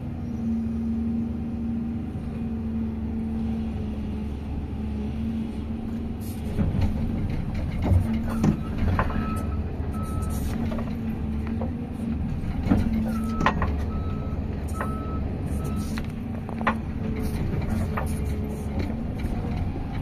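Diesel engine of an old heavy earthmoving machine running steadily, heard from inside its cab. From about six seconds in come clanks and rattles as the machine works. From about nine seconds in, a travel or back-up alarm sounds in repeated short high beeps.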